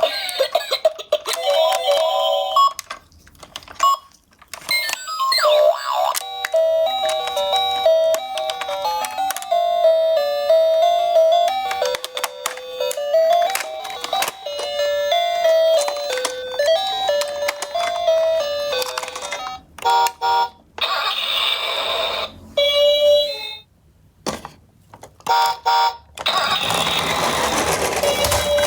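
A simple electronic melody in beeping tones, stepping up and down in pitch. It is broken by several abrupt short gaps and by bursts of denser, rougher electronic sound.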